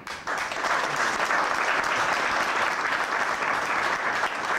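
Audience applauding, a dense, steady patter of many hands clapping that breaks out at the start and keeps up.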